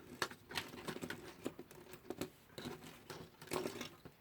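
Light, irregular clicks and scrapes of small metal alarm-clock movement parts being handled and worked apart.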